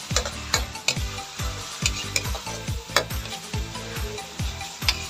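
Ground pork and onions sizzling in a hot wok while a spatula stirs and scrapes them, knocking sharply against the pan several times.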